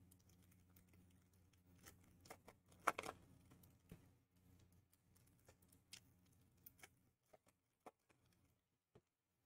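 Faint rustling and light clicks of trading card packs and cards being handled and opened, with one louder crinkle about three seconds in. A faint low hum underneath cuts out about seven seconds in.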